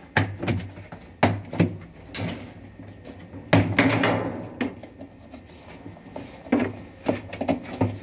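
Tub of a Mabe Aqua top-loading washing machine pushed by hand so it knocks against the cabinet, about nine sharp knocks in uneven groups. The tub moves too freely because its shock absorbers are worn, so it strikes the sides.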